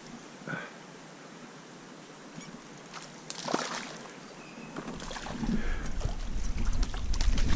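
Stream water splashing: a short splash about three and a half seconds in, then louder, continuous sloshing and rumble close to the microphone through the second half.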